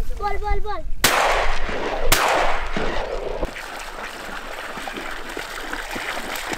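Mallard ducks quacking, cut off by two shotgun shots about a second apart, each trailing off in an echo. Then the steady splashing of a dog swimming out after the ducks.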